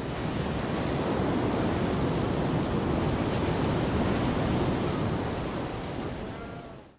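Ocean surf washing steadily, fading out near the end.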